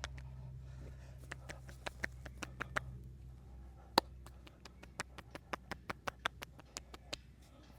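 Irregular sharp slaps and taps of a masseur's hands on the body during a fast percussive massage, over a low steady hum that fades out about three seconds in.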